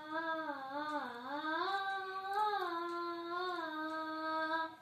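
A boy singing alone without accompaniment, in long held notes with slow, gentle bends in pitch.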